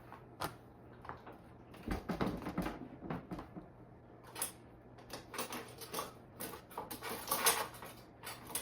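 A metal bicycle chain clicking and rattling in irregular bursts as it is handled and fed back onto the e-bike's sprockets.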